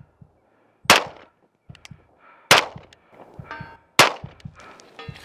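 Three 9mm pistol shots from a Smith & Wesson M&P9 2.0, about a second and a half apart. Each is followed about a second later by a faint metallic ring: the bullet striking a steel silhouette target far downrange.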